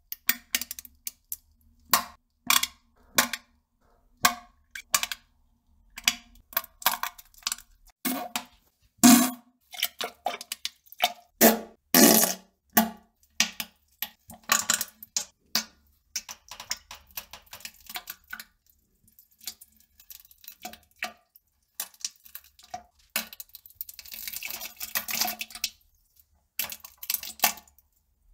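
Farting and defecation sounds: an irregular run of short, wet spluttering bursts, some with a low buzzing pitch, the loudest a third of the way in and a longer hissing splutter near the end.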